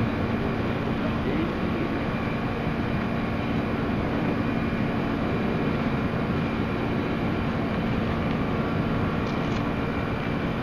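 Steady, distant jet engine rumble of the Boeing 747 Shuttle Carrier Aircraft flying overhead, with a constant low hum under it.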